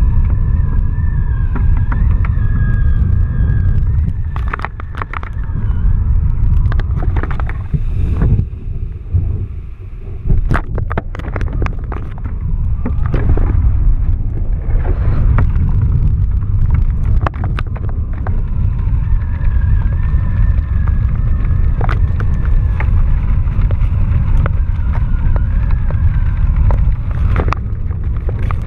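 Wind buffeting the microphone of a camera flying high above the water: a heavy, steady low rumble with scattered crackles, and a thin wavering whine that comes and goes.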